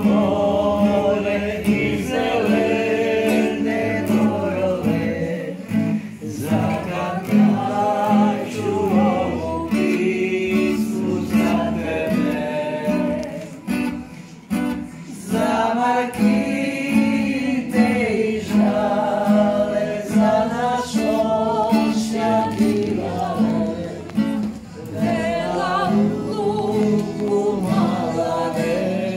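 Several people singing a song together, accompanied by an acoustic guitar.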